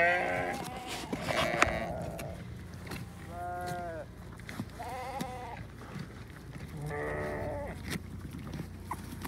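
Sheep bleating about five times, each call short. Between the calls come sharp crunching clicks as the sheep bite into a raw pumpkin.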